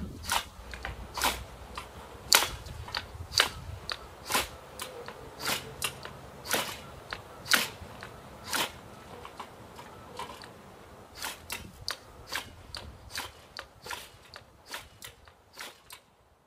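Ferrocerium rod scraped again and again with the spine of a Habilis bush tool, a short sharp rasp about once or twice a second. The strikes come faster after about two thirds of the way through and stop near the end.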